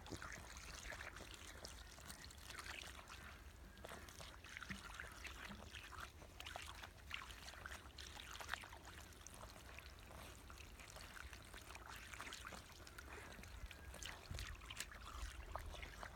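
Faint spatter and trickle of water from a garden hose sprinkler, broken by irregular splashes and clicks as a puppy bites and snaps at the spray.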